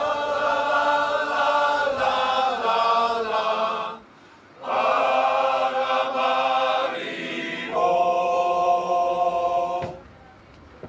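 Men's shanty choir singing long held chords with accordion accompaniment, in three phrases with a short break about four seconds in, closing on a final held chord that stops together about ten seconds in: the end of a song.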